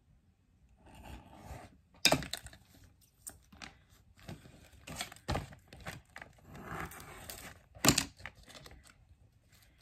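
Printed paper sheets being handled and pulled apart: scattered rustling and tearing, with two sharp snaps about six seconds apart.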